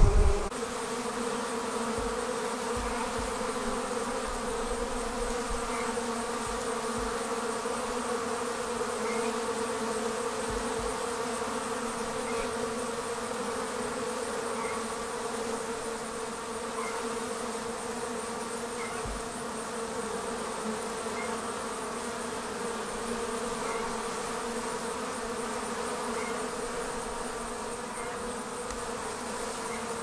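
Many honey bees buzzing at a hive entrance: a steady, continuous hum of bees flying about, briefly louder at the very start.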